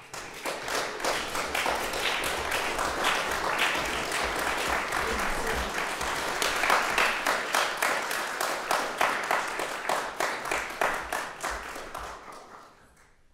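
Audience applauding, a dense patter of claps that dies away near the end.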